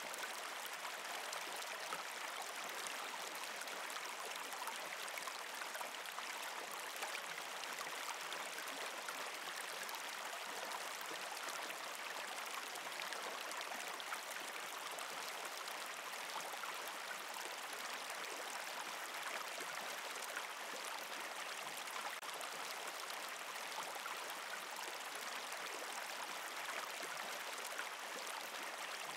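Steady running water, like a flowing stream, with no change in level.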